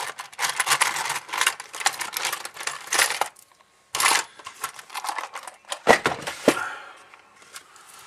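Small tools and a handheld radio's circuit board being handled: irregular clicks, clinks and scraping. There is a brief pause a little before the middle, and two sharper knocks come later.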